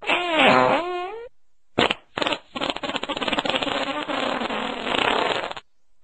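A run of fart sounds. First comes a pitched fart that wavers down and up for just over a second, then a short blip, then a long sputtering, fluttering fart lasting about three and a half seconds.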